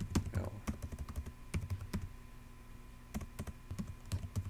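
Computer keyboard being typed on: irregular clicking keystrokes, thinning out briefly a little after halfway before picking up again.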